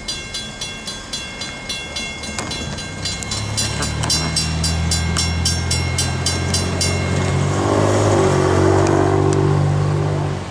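Railroad crossing bell ringing at about three strikes a second while the gate arm rises, then stopping about seven seconds in. A low vehicle engine hum builds beneath it and is the loudest sound near the end.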